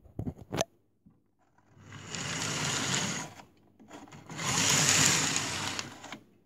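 Gützold BR 52 model steam locomotive running on the track in two short runs, its small electric motor and gears whirring, each run starting and stopping within about a second and a half. A few sharp clicks come just before the first run.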